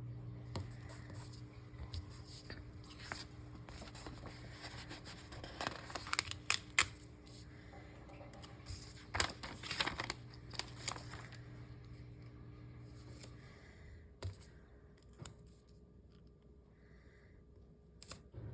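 Paper stickers being peeled from their backing sheet and pressed onto planner pages: short papery crackles and taps, loudest about six to seven seconds in and again around nine to eleven seconds. A low steady hum runs underneath and stops about two-thirds of the way through.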